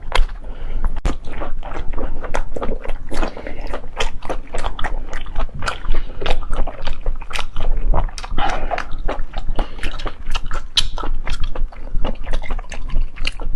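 Close-miked chewing and biting of octopus, with a dense run of quick, irregular wet clicks and smacks.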